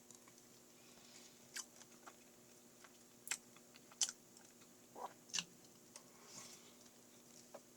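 Mouth chewing mashed choco pie with milk: a few scattered wet clicks and smacks, roughly one every second or so, against a quiet room.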